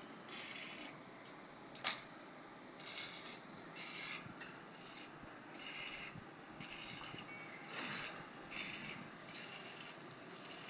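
Rhythmic scraping or rasping strokes, about one a second, each lasting about half a second, with one sharp click about two seconds in.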